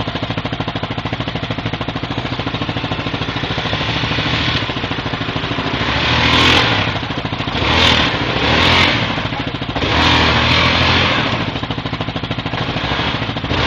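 ATV engine running at low revs with a steady pulsing beat, then revved hard in about four surges in the second half as the quad claws up a muddy rut under load.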